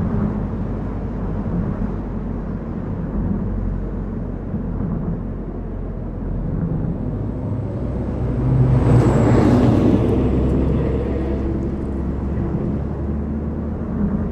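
A car driving along a road: steady low engine and tyre rumble, with a louder swell of noise about nine seconds in that fades away over two seconds or so.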